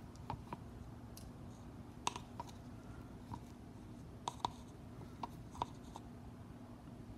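Wooden stir stick clicking and scraping against the sides of a plastic mixing cup as pigmented epoxy resin is stirred: irregular small clicks, a few louder ones about two seconds in and just past four seconds.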